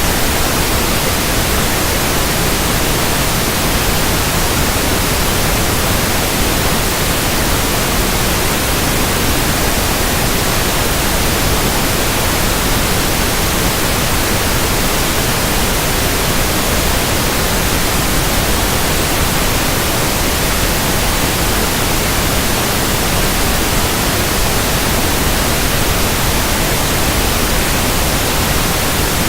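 Pink noise speaker test signal: a steady, unchanging hiss spread across the whole range from deep to high, with no tones or breaks.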